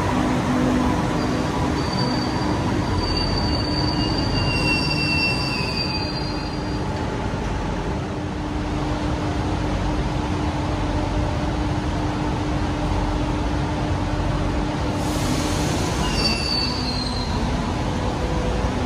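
Madrid Metro train pulling into an underground station and coming to a stop, with a steady rumble and hum. Its wheels squeal in thin high tones during the first few seconds and again briefly near the end.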